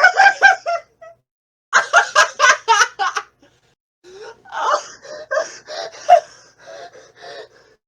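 A person laughing in three bouts: a short one, a second of about a second and a half, and a longer last one that trails off, each made of quick pulses about five or six a second.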